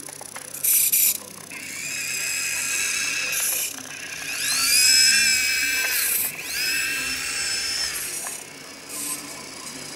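Electric drive motor and gearbox of a Siku Control model tractor (Steyr CVT 6230) whining as it drives, rising in pitch as it speeds up, twice over. A short loud burst of noise comes about a second in.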